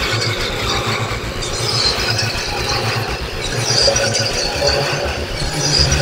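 Electronic music from a live synth jam: a distorted acid bass line from a Behringer TD-3 sequencing analog synths pulses quickly and evenly. Harsh, squealing synth noise runs over it, with effects such as phaser, bitcrush and delay.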